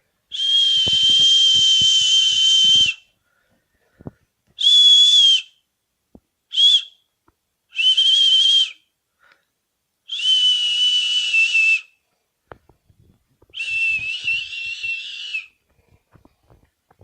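A person whistling to call a cat: six separate whistles on one steady high pitch, most a second or more long, the third very brief and the last one wavering, with breathy hiss around each.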